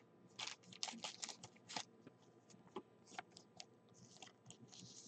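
Faint, scattered small clicks and light rustles of hands handling a trading card, bunched in the first two seconds, with a soft rustle near the end.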